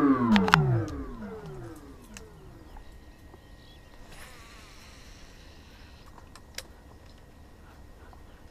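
A pitched sound sliding steeply down in pitch, with echoes trailing behind it, fading out about two seconds in as the soundtrack winds down. After it, only a faint outdoor background with a few light clicks.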